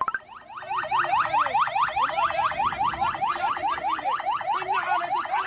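Vehicle siren in a fast yelp, sounding a rapid, unbroken series of rising sweeps, about six a second.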